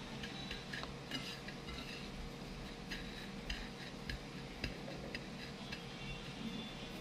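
Light, irregular clicks and taps of fingers and a ring against a plate as hands roll a graham ball in crushed graham crumbs, over a faint steady hum.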